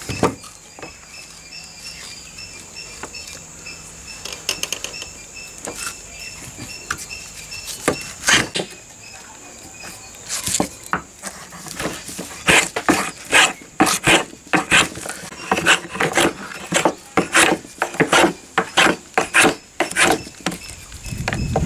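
Wooden hand plane shaving a wooden handle blank: short rasping strokes, a few scattered ones at first, then quick repeated strokes about one to two a second through the second half.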